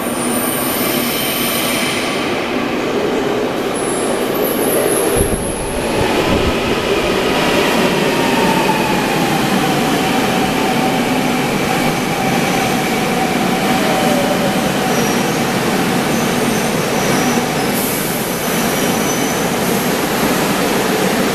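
Daejeon Metro Line 1 train running into an underground station and slowing, its rumble steady throughout. A whine falls slowly in pitch through the middle, and brief high squeals come near the end.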